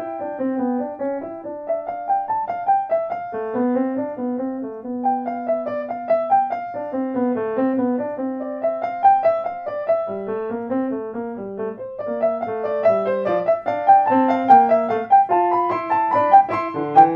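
Solo piano music playing flowing arpeggiated figures, growing fuller and reaching higher notes in the last few seconds.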